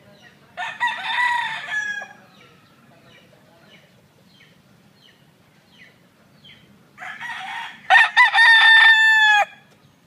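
Gamecocks crowing twice: one crow about half a second in, and a second, louder and longer crow from about seven seconds. Faint short calls are scattered between the two crows.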